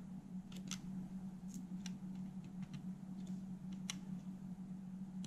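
Small, irregular plastic clicks and taps as a plastic plate is handled and pressed back into place on a cassette deck's tape mechanism, over a steady low hum.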